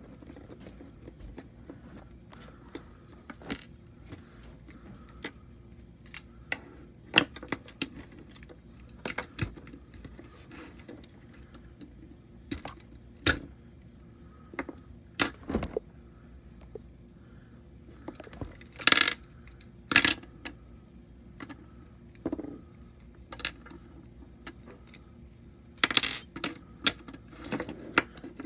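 Small metal parts and screws clinking on a hard tabletop and plastic toy-train chassis pieces clicking as a motorized toy train is taken apart by hand with a small screwdriver. Scattered sharp clicks, with a few louder clattering bursts in the second half.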